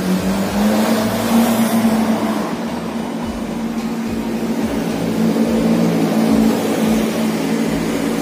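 A motor vehicle engine running steadily with a continuous hum, its pitch rising a little about a second in and easing back down later.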